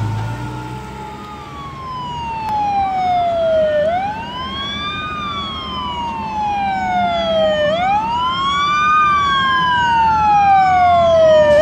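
A fire truck's siren wailing. Each cycle rises quickly in pitch and then falls slowly, about once every four seconds, and it grows louder as the truck approaches.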